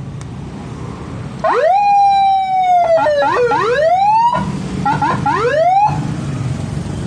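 Nine-tone police-escort siren on a Yamaha NMAX scooter, sounding about a second and a half in. It rises quickly into a long, slowly falling wail, then runs into a string of short rising whoops and cuts off abruptly near six seconds in. A low steady rumble runs underneath.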